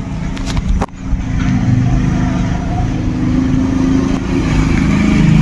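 A motor vehicle engine running close by, drifting slightly in pitch and louder after about a second, with a short knock just before.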